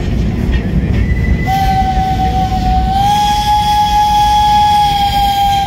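Steam locomotive's whistle blowing one long steady blast, starting about a second and a half in and stepping up slightly in pitch partway through, over a low rumble.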